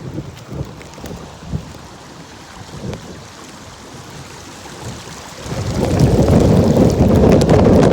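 Heavy rain with a steady hiss, joined by a loud low rumble that swells over the last couple of seconds and cuts off suddenly.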